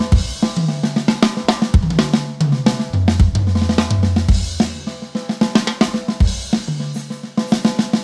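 Drum kit played in a groove with fills: the snare kept softer, with ghost notes and accents, the toms struck harder and ringing low, over bass drum and cymbals. The playing stops at the very end and the kit rings out.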